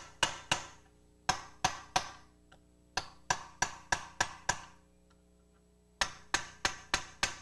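Hammer blows on a blunt chisel set against the outer sleeve of an upper control arm bushing. The sharp metallic strikes come about three a second in four runs of three to six blows, each ringing briefly. The blows loosen the bushing in the control arm before it is drawn out.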